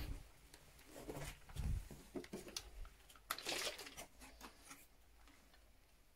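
Faint scattered rustling, scraping and light knocks of things being handled and shifted, with a dull thump a little under two seconds in; it thins out after about five seconds.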